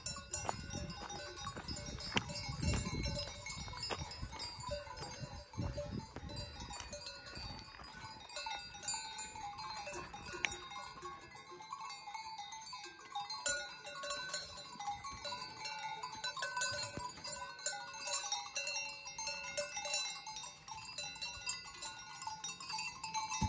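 Several cowbells on grazing cows clanking and ringing irregularly, many overlapping tones. A few low thuds in the first six seconds.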